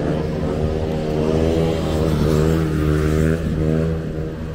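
Low, steady machine hum with many overtones from a classic streetcar, wavering slightly in pitch, swelling in the middle and dropping off about three and a half seconds in.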